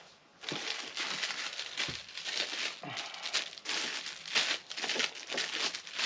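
Plastic and paper packaging crinkling and rustling as it is handled and pulled out of a plastic tool case, starting about half a second in and going on irregularly.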